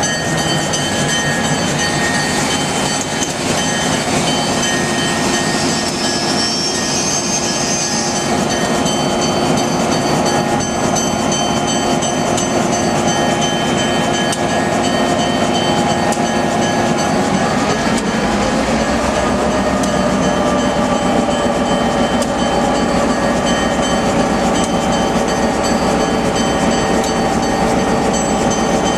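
Diesel passenger train passing close by: the lead diesel locomotive's engine drone and its wheels on the rails as the passenger cars roll past, then, from about two-thirds through, a second diesel locomotive's engine rising in pitch and getting louder as the trailing unit comes by.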